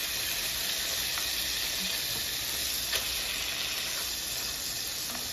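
Turkey burger patties sizzling in olive oil and butter in a frying pan, a steady hiss, as they are turned with a spatula. A light click comes about three seconds in.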